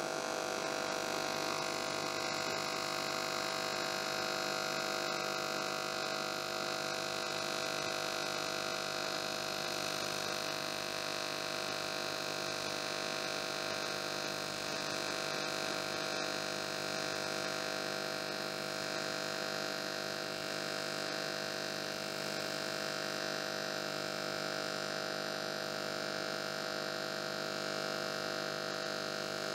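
AC TIG welding arc from a Grovers WSME-200 welder, buzzing steadily at the 50 Hz alternating-current setting while fusing 4 mm-wall aluminium with filler rod, at up to 150 amps on the foot pedal.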